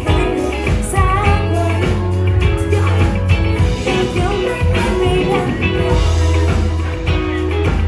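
A pop-rock song played by a band with a strong bass and a steady beat, a woman singing the melody over it.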